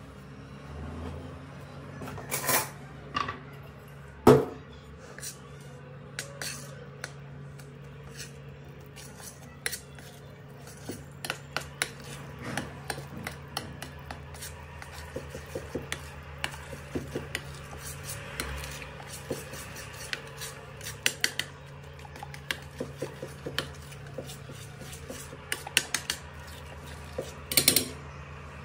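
Metal spoon stirring and scraping a thick mixture of oil, tahini and powdered sugar in a ceramic bowl, with frequent light clinks against the bowl. The sharpest clink comes about four seconds in.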